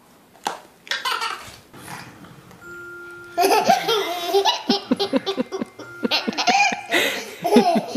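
Toddler laughing hard in quick, repeated bursts, starting a little before halfway through and loudest from there on. Just before it comes a brief steady tone.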